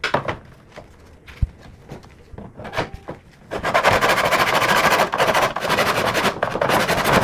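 A few light knocks as a strip of wood is set into a plastic mitre box, then, from about three and a half seconds in, a hand saw cutting the wood with steady back-and-forth strokes, the blade running in the mitre box's guide slots.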